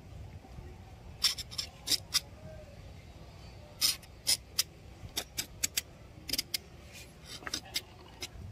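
Paintbrush dabbing and scratching on watercolour paper: an irregular series of short, sharp scratches starting about a second in, over a low steady background rumble.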